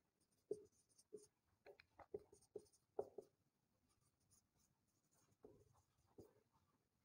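Marker pen writing on a whiteboard: a run of faint, short strokes, with a pause of about two seconds past the middle before two more strokes.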